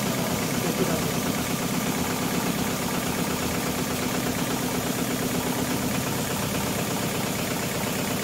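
HighTex GLK700-5030 programmable pattern sewing machine stitching thick thread through a heavy webbing lifting sling: a fast, steady run of needle strokes as the clamp frame carries the sling under the head.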